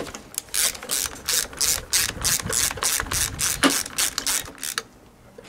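Socket ratchet clicking in a fast, even run as it tightens the nut on the self-drive gearbox pulley of a John Deere JS63C lawnmower. The clicking stops about a second before the end.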